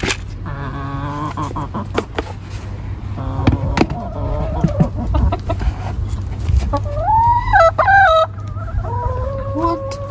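Hens calling: several drawn-out squawking calls, the loudest rising and then breaking off about two thirds of the way through, and a long, level call near the end. A few light knocks come in the first half.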